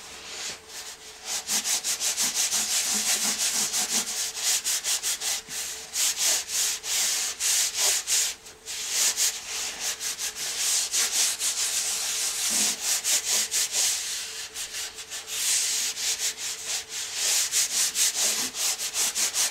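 Bare hands rubbing the back of a sheet of paper laid over an inked Styrofoam printing plate to transfer the ink: a fast run of dry, hissy back-and-forth strokes, with a brief pause about eight and a half seconds in.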